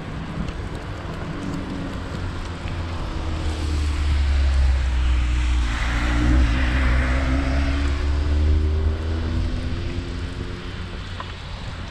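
A car passes on the road alongside, swelling to its loudest just past the middle and then fading. Under it, wind rumbles on the microphone of a bicycle-mounted camera.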